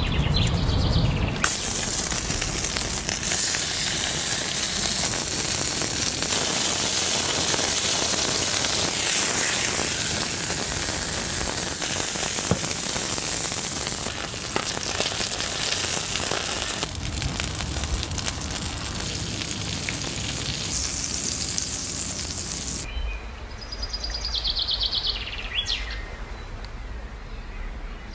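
Beef burger patties sizzling loudly in oil on a hot stone slab, a steady frying hiss. Near the end the sizzle drops away and birds chirp.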